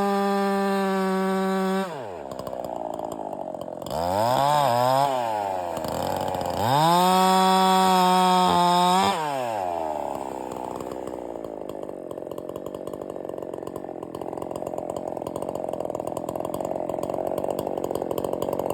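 Ported Holzfforma 372G two-stroke chainsaw held at full throttle, then dropping to idle. About four seconds in it is blipped twice, then held at full throttle again for about two seconds, before falling back to a steady idle.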